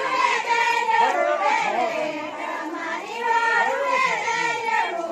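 A group of women singing a pahadi folk song together for a ring dance, in long held phrases with no instruments.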